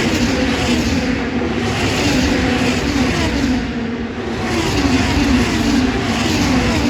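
IndyCar race cars' twin-turbo V6 engines going by in a group under caution, each engine note dropping in pitch as a car passes.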